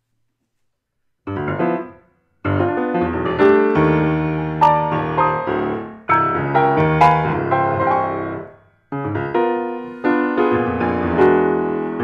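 Yamaha grand piano played solo, starting about a second in: slow chords and melody in short phrases, each ringing and dying away, with brief silences between them.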